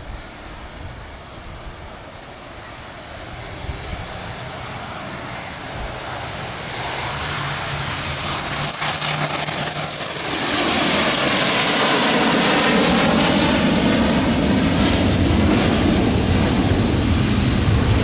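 Twin Williams FJ44 turbofan engines of a Cessna Citation CJ3 business jet at takeoff power, growing louder as the jet climbs toward and past. A high whine rises slightly, then drops in pitch as the jet passes about ten seconds in, leaving a steady roar.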